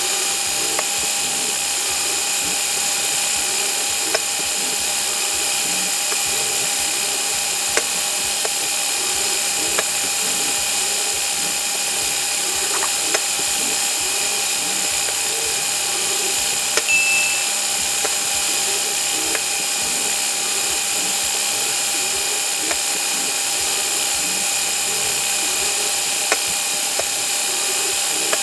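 Lego crane's motors and gears whirring steadily, played back at five times speed, with a few small clicks and a brief high tone about halfway through.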